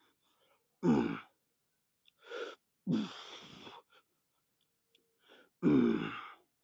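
A man's hard breathing under the strain of a lift: three loud voiced grunting exhales, with shorter breathy breaths between them.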